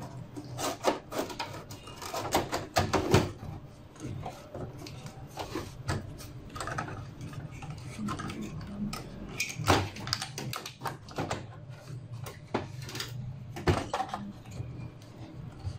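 Irregular clicks, taps and light knocks of a motherboard and its parts being handled and fitted inside a Dell OptiPlex desktop's case, over a faint low hum.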